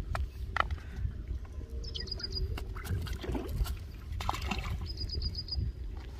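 Low wind rumble on the microphone with stones clicking and a nylon mesh keep net rustling as it is handled, loudest a little after four seconds. A bird twice gives a quick high trill of about five notes, about two seconds in and near the end.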